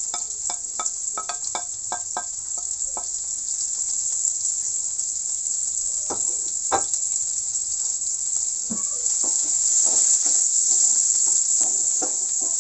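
Garlic and chopped onion sizzling in a frying pan, a steady high hiss that grows a little louder in the second half. A spatula taps and scrapes rapidly during the first few seconds, and a wooden spatula knocks and scrapes in the pan while stirring near the end.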